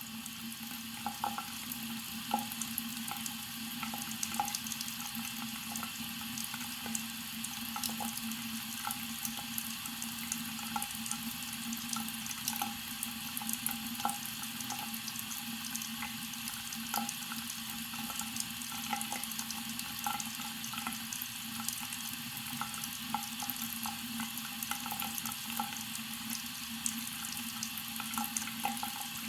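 Faucet running a slow, steady stream into a sink, water splashing and running down the open drain, with many small irregular splashes.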